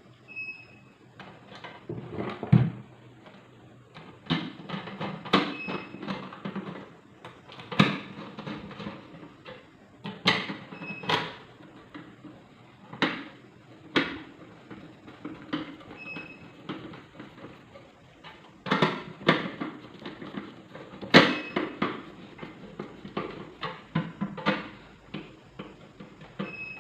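Irregular clicks, knocks and light clatter of a rice cooker's casing parts being handled and screwed back together during reassembly.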